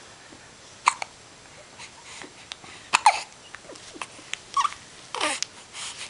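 Baby hiccuping: several short, sudden hiccups a second or two apart, some with a brief falling vocal squeak, the loudest about halfway through.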